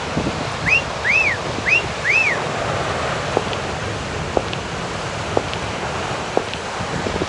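Steady rushing of a waterfall. Four short arched bird calls come in the first couple of seconds, and a few faint clicks follow later.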